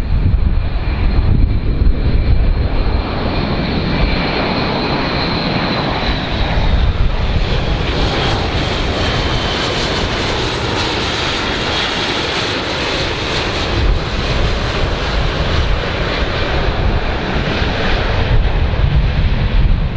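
Large aeroplane's engines running loud and steady, with a thin high whine that slowly drops in pitch and a brighter hiss building through the middle.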